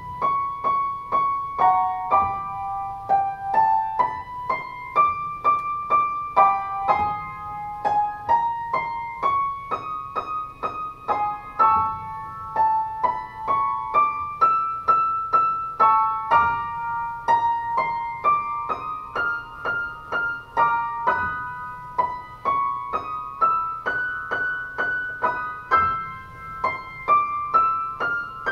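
Piano playing short up-and-down scale runs in the high treble, a few struck notes a second, each run starting a step higher. These are range-check exercise patterns, with the top note climbing from about C#6 to G6.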